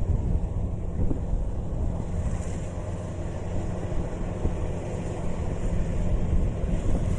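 Kubota rice combine harvester's engine running steadily under load, a constant low drone, with wind buffeting the microphone.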